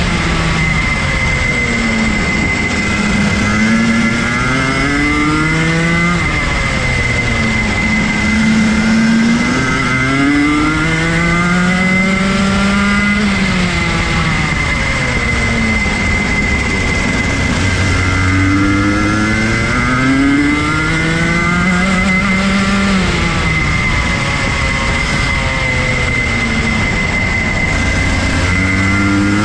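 Rotax Max Junior 125 cc single-cylinder two-stroke kart engine at racing speed, its pitch climbing along each straight and dropping as the driver brakes for the corners, several times over.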